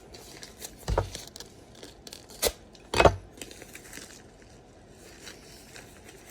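Plastic LEGO pieces being handled and pressed together, with three sharp clicks about one, two and a half and three seconds in, and light rustling between.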